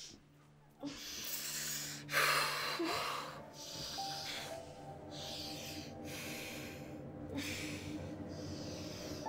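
A woman breathing hard and unevenly in a troubled sleep, with a sharp gasp about two seconds in, over steady held tones of a film score.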